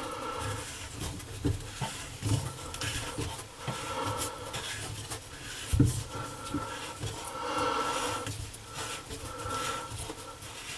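Small knocks, clicks and scrapes of hands and tools working the drain parts under a bathroom sink, with the worker's breath rising and falling every second or two. One sharper knock comes a little before the middle.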